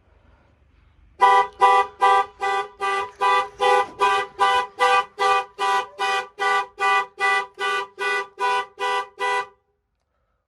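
Car horn pulsing as a panic alarm: about twenty evenly spaced honks at roughly two and a half a second, starting about a second in and cutting off near the end.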